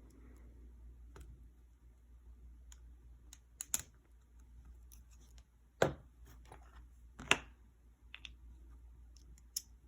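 Small metal parts of an ASSA Desmo lock cylinder being handled during disassembly: scattered light clicks and scrapes, with three sharper clicks in the middle.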